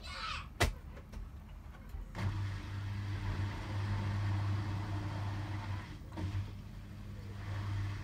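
Hotpoint WMFUG 942 washing machine: the drum stops from a spin with a sharp click about half a second in. From about two seconds its drain pump hums steadily, with a brief break near six seconds.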